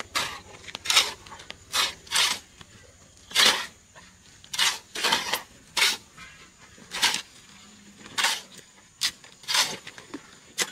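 A series of short, sharp knocking or scraping strokes, irregular and about one a second.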